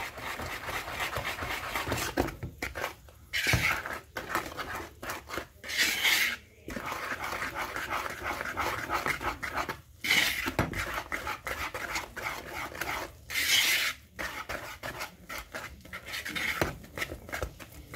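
Wire whisk stirring flour into cake batter in a plastic mixing bowl: a continuous rapid scraping and swishing of quick strokes, with a few louder stretches.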